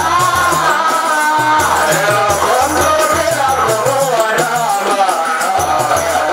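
Qaswida, a Swahili devotional song: singing over a regular beat of dufu frame drums with a rattling percussion accompaniment.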